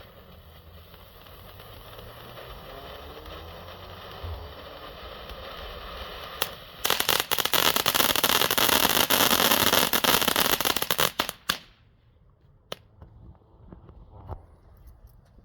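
Fireworks fountain (volcano) burning with a hiss that slowly grows louder, then about seven seconds in breaking into dense, intense crackling for several seconds before it cuts off abruptly. A few scattered pops follow.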